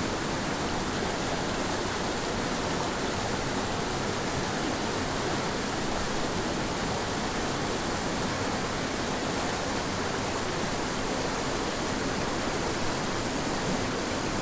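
Rushing water of a small mountain creek tumbling over rocks and pools: a steady, even rush with no breaks.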